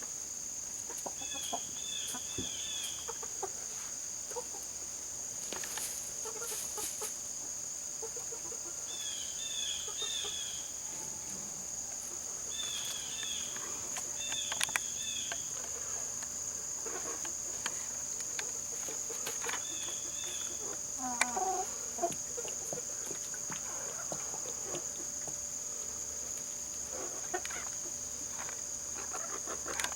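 Australorp chickens clucking and calling here and there, with short groups of high chirps. A steady high insect buzz runs underneath.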